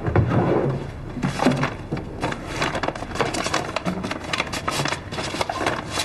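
Brown paper bag crinkling and rustling in quick, irregular bursts as a sheet of drawing paper is handled and pulled out of it.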